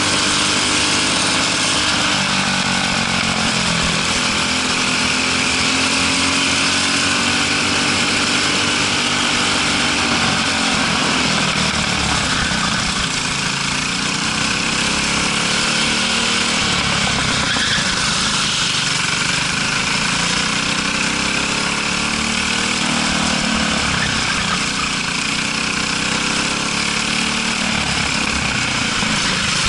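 Briggs & Stratton LO206 single-cylinder four-stroke kart engine running hard at racing speed, close up from on board. Its revs rise and fall again and again as the kart brakes for corners and accelerates out of them, over a steady hiss.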